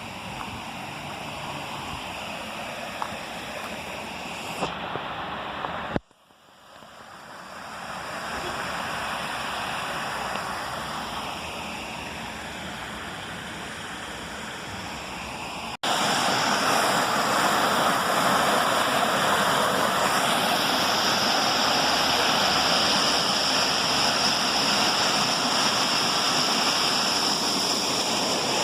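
Cascading water rushing steadily. It drops out abruptly about six seconds in and swells back, then comes in louder after a sudden cut at around sixteen seconds.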